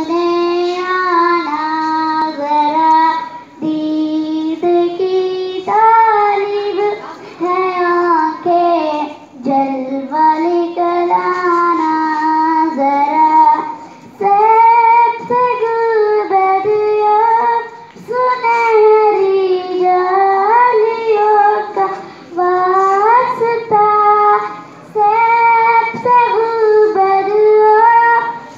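A young girl reciting a naat, singing solo without instruments in long, melodic phrases with short breaks for breath between them.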